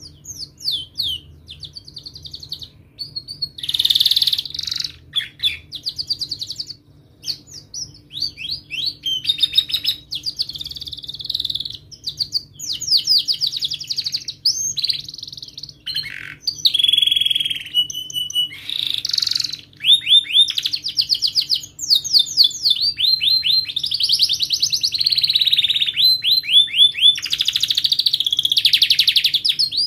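A domestic canary singing a long, varied song of fast rolling trills and quick repeated chirps, switching from one phrase to the next every second or two with only brief pauses.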